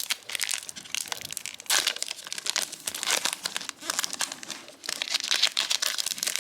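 Crinkling and rustling of a foil booster-pack wrapper and trading cards being handled, in a run of irregular crackles.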